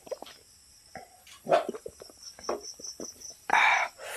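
A man gulping Coke from a glass, with short swallowing sounds, then a loud burst of breath near the end as he lowers the glass, reacting to the fizzy drink.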